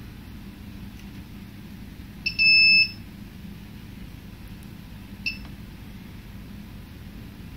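Electronic beeper of a banknote sorting machine: a short blip followed by a louder half-second beep about two and a half seconds in, then one short beep about five seconds in, heard as its display is switched between screens. A steady low hum from the machine runs underneath.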